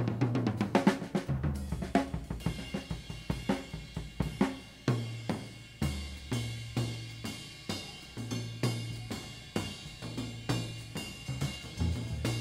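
Live rock drum-kit solo: snare, cymbal, hi-hat and bass drum hits at a loose, irregular pace, a quick flurry in the first second and then more spaced strokes. Low sustained notes sound underneath at times.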